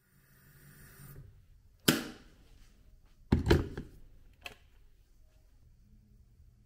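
Things being handled in a small room: a soft rustle, then a sharp knock about two seconds in, a louder double clatter about a second and a half later, and a light click.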